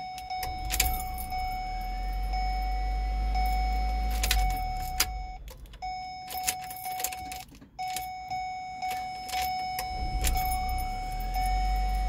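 Keys jangling and clicking in the ignition lock of a 2008 Ford Escape Hybrid while a dashboard warning chime sounds steadily. Twice, about half a second in and again near ten seconds, the car starts: a low rumble comes on with a whine rising in pitch, which shows the repaired ignition switch now starting the car.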